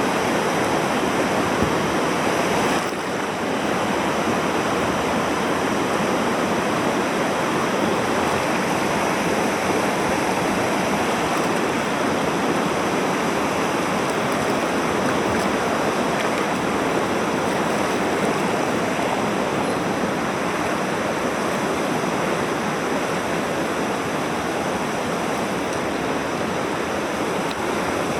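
Mountain stream water rushing steadily over rocks, a constant full hiss of running water.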